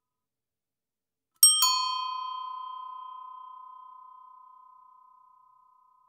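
Bicycle bell struck twice in quick succession, then ringing out with a slightly wavering tone that fades slowly over about four seconds.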